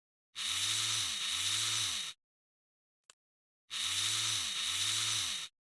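A short click followed by a harsh mechanical rasp lasting about two seconds, with a swooping rise and fall inside it; the same click and rasp repeat identically about three seconds later. This is the sound effect for working a part of a Welrod pistol during disassembly.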